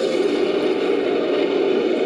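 Made-up pterosaur cry built from layered monster roars and screeches: one continuous, rough, noisy call that holds steady without a break.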